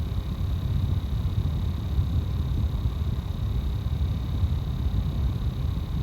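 Building air duct: a steady low rumble of air moving through ventilation ductwork, with a faint high steady tone above it.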